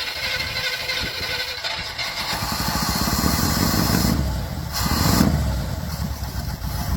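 1966 Chevy C20 pickup's 327 V8, long unused, firing up and running rough, with a louder burst about five seconds in; the owner reckons it is running on about five cylinders.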